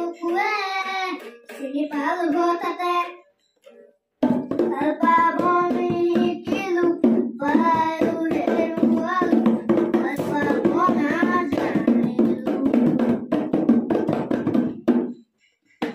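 A young boy singing into a toy microphone; after a short pause, a tune with a beat plays from a toy, with singing over it, and it stops shortly before the end.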